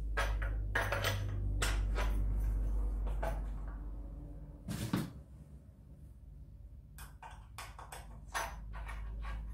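Plastic safety guard being fitted onto a string trimmer's cutting head: a series of irregular plastic clicks and knocks as the parts are handled and pressed together, the loudest knock about halfway through and a quick run of clicks near the end, over a low steady hum.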